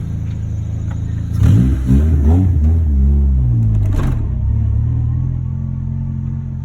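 Car engine revved in quick blips about a second and a half in, its pitch rising and falling for a couple of seconds, then settling back to a steady low run.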